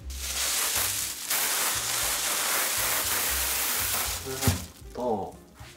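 Kitchen tap running into a stainless steel sink while hands are washed under it: a steady rush, briefly broken about a second in, shut off about four seconds in, followed by a click.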